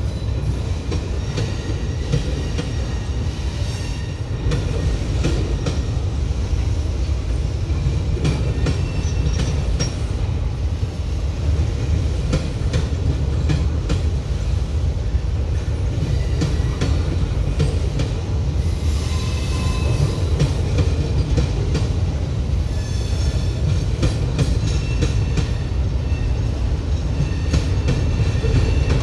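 Freight train rolling by: a steady rumble of wheels with rapid clicks over rail joints, and thin high wheel squeals that come and go, strongest about two-thirds of the way in.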